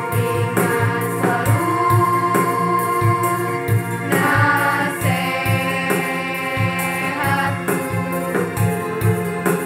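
A girls' school choir singing in unison over an accompaniment with a steady beat, amplified through stage loudspeakers.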